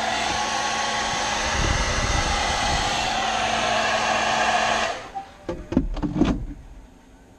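Hair dryer blowing, a steady noisy rush of air with a hum in it, heat-setting a fresh coat of acrylic paint; it cuts off suddenly about five seconds in, followed by a few light knocks.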